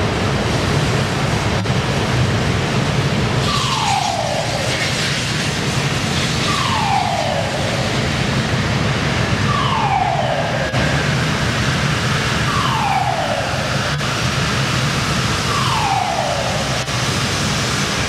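Blast furnace tapping: a loud, steady rushing noise with a low hum as molten iron runs from the taphole amid spraying sparks. A siren-like falling tone sounds five times, about three seconds apart.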